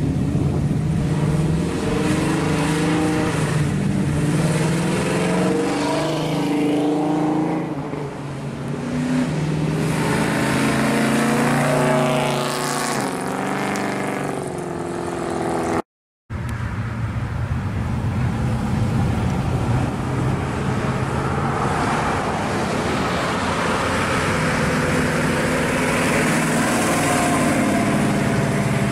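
Exhaust of a 1955 Chevrolet hot rod pulling away and accelerating, its engine note climbing in steps as it goes up through the gears. After a cut, a 1969 Camaro SS's V8 rumbles steadily as it drives away, rising near the end.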